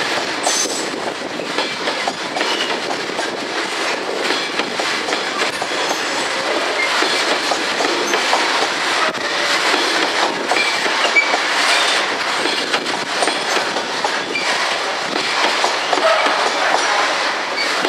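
A train running through on the rails: a steady, loud clatter of wheels over the track, thick with small clicks, and a few short wheel squeals.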